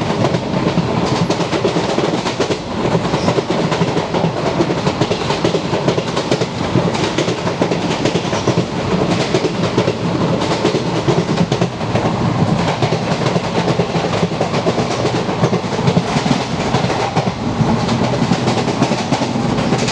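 Vintage ICF passenger coach running along the track at speed: a steady rumble with the clickety-clack of its wheels over rail joints.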